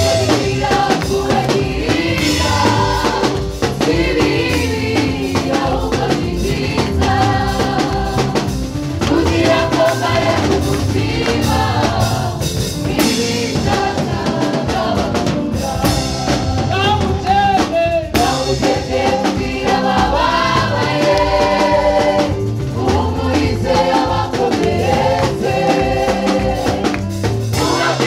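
Live gospel worship song: a man sings lead into a microphone over a band with a drum kit.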